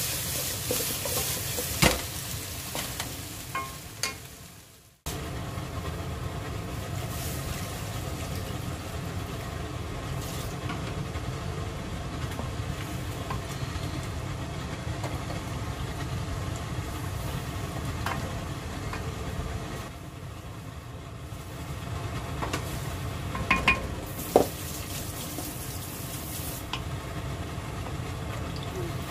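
Chicken pieces sizzling in an oiled pan with a high hiss while a spoon stirs them, cut off suddenly about five seconds in. After that, a spicy chicken and potato braise in red broth is stirred with a spoon over a steady low rumble, the spoon knocking against the pan a few times.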